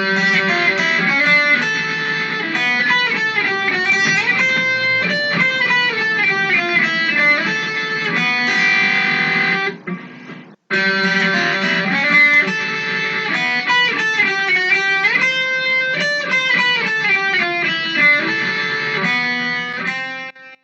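Intro music led by electric guitar, with a short break about halfway through before the riff starts again; it ends abruptly.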